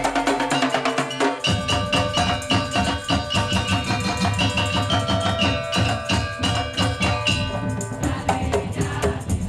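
Percussion ensemble of tuned gongs in carved racks and drums playing a fast, busy pattern of ringing metal strokes, with a deep drum beat coming in about a second and a half in.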